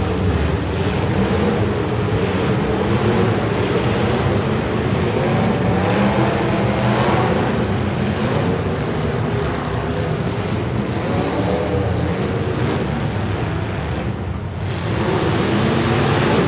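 Demolition derby cars' engines running and revving over one another, their pitch rising and falling, with no single crash standing out.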